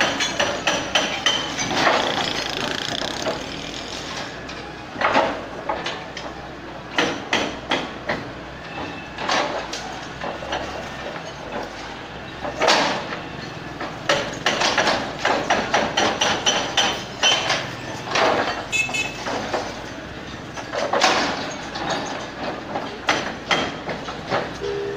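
Hydraulic excavator demolishing a concrete building front: repeated irregular crashes and clatter of breaking concrete and debris as the bucket tears at the wall, over the excavator's engine running.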